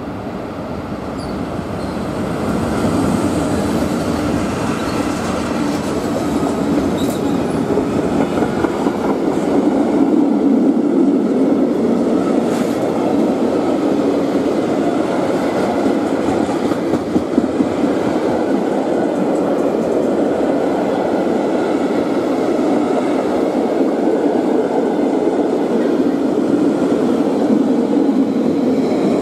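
Freight train passing close by: the rumble builds as the locomotive arrives, then a long string of freight wagons runs by, wheels clicking over rail joints now and then.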